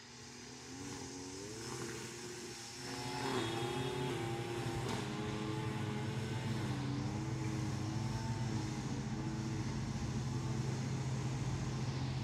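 An engine running, getting louder over the first three seconds or so, its pitch wavering up and down over a steady low hum.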